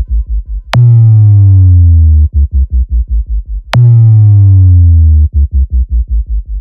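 Loud electronic DJ track with heavy bass. A deep, falling bass note starts with a sharp click and is followed by fast stuttering bass pulses, about eight a second. The pattern repeats about every three seconds, then the music cuts off suddenly at the end.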